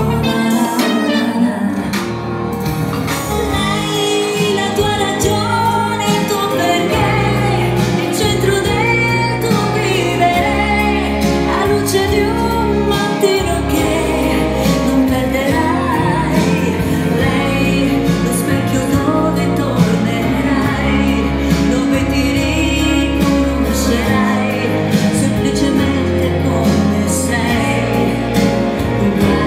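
A woman singing a song into a microphone, accompanied by a Korg Pa700 arranger keyboard with low bass notes changing every couple of seconds.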